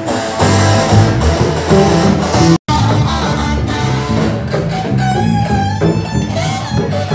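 Live band music: a strummed guitar with a hand drum keeping the beat. The sound cuts out completely for an instant about two and a half seconds in.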